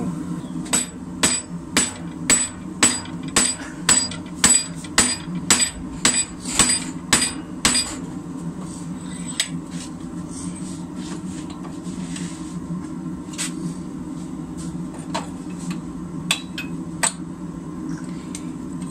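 Hand hammer striking the hot end of a length of rebar held upright in a vise, upsetting it to thicken the end. There is a quick run of about fourteen sharp metallic blows, roughly two a second, then a few scattered blows in the second half, over a steady low hum.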